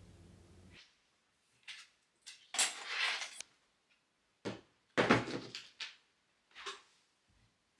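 Small craft supplies being set down and handled on a desk: glaze bottles and a respirator mask placed one after another. Several short knocks and rustles, the longest about two and a half seconds in and the loudest about five seconds in.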